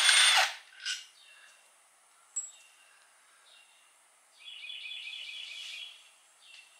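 A power tool runs briefly, backing out a transmission case bolt, and stops about half a second in. Later comes a short run of rapid high-pitched chirps lasting about a second and a half.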